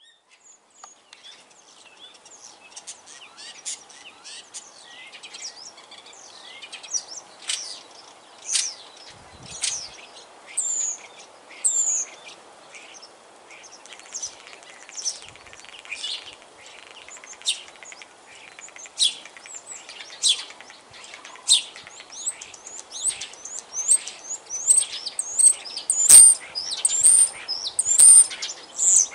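Common starling singing: a long, rambling run of quick whistles, chirps and clicks, denser and louder near the end.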